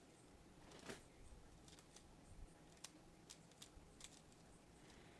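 Super Weilong V2 speed cube being turned rapidly during a solve, its layers giving faint, irregular clicks.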